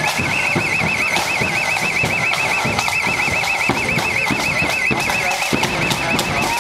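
A warbling electronic alarm tone sounding without a break, its pitch wavering up and down several times a second, over street noise and the drumming of an approaching marching band.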